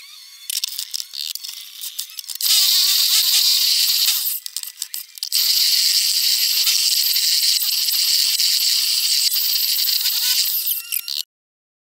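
Carbide-tipped wood-turning tool cutting into a spinning log on a wood lathe: a loud, hissy scraping as shavings come off. It goes in stretches, with broken, quieter patches about a second in and again around four to five seconds in, and it cuts off suddenly near the end.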